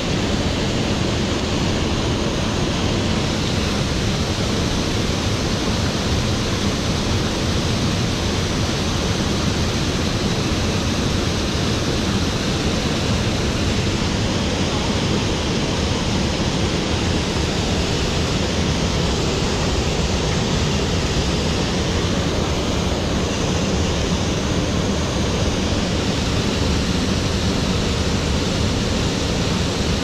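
Steady, unbroken rush of mountain-stream water flowing over rocks.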